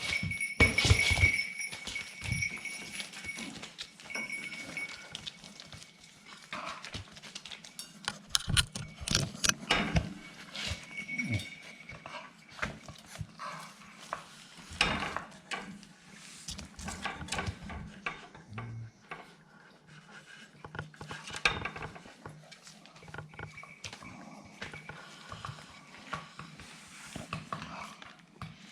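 Staffordshire bull terrier puppies playing: dog vocalizations over an irregular run of scuffling knocks and clicks.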